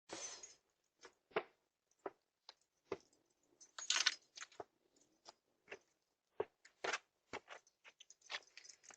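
Faint, irregular clicks, knocks and scuffs, with a brief louder scraping rustle about four seconds in.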